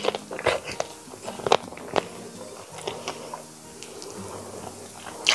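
Mouth sounds of eating curried chicken by hand: wet chewing, lip smacks and sucking on the meat, with a few sharp clicks about half a second, one and a half and two seconds in.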